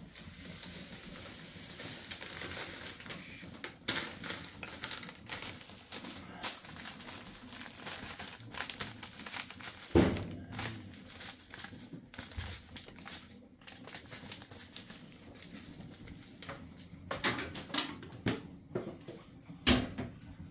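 Foil bag crinkling and rustling as it is handled, with scattered small clatters and a sharp knock about halfway through.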